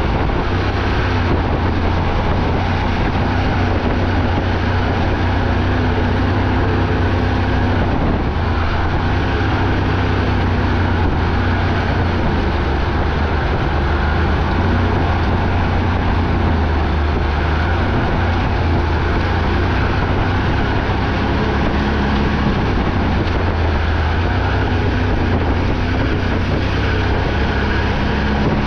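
ATV engine running steadily while riding along a trail, with small rises and dips in engine speed.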